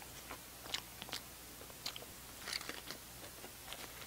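A person chewing a mouthful of a small bread-roll sandwich close to the microphone: soft, scattered brief clicks and crunches of the mouth and bread, a little busier about two and a half seconds in.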